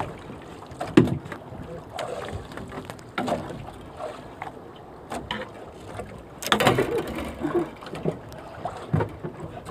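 Handling sounds in a small fishing boat as a caught scabbard fish and its handline are dealt with: scattered knocks, thumps and rustles against the boat, busiest a little past the middle.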